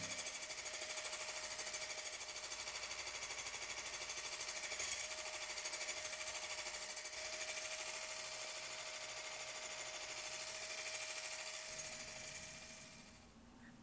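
Wire balloon whisk beating egg whites and sugar into meringue in a bowl: the wires click and scrape against the bowl in a fast, even rhythm, fading out near the end.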